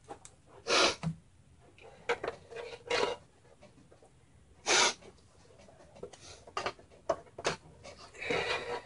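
SATA power cables and their plastic connectors being handled and plugged into a power supply: scattered light clicks and three short rustling bursts, the loudest about five seconds in.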